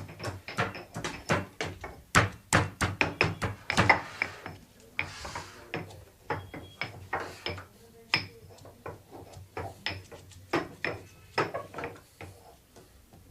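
Ground spice powder being sifted through a household flour sieve, the sieve knocked and tapped over and over: a quick run of sharp knocks in the first few seconds, then sparser, lighter taps, with a brief sandy rustle of powder about five seconds in.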